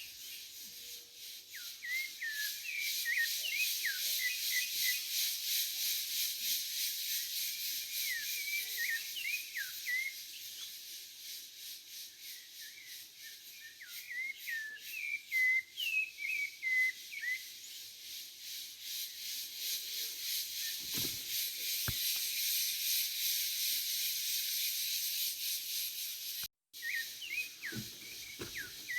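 Cicadas buzzing in a steady, pulsing chorus, with a sabiá thrush singing short whistled phrases in bursts every few seconds. The sound cuts out for a split second near the end.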